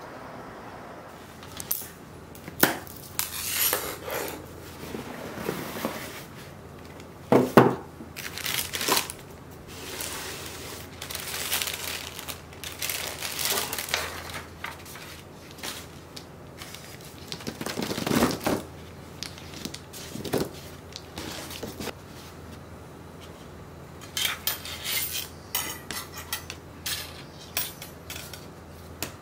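Dishes and cutlery clinking and knocking as they are handled and set down, in irregular strokes with some scraping and rustling between.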